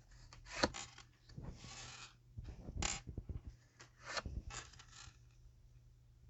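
Tarot cards being handled on a table: a short rustle of shuffling and a few sharp taps and clicks as cards are laid down.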